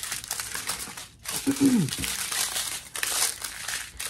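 Thin plastic zip-top bags of diamond painting drills crinkling as a strip of them is handled and a single bag is pulled off it, with a short pause just after a second in.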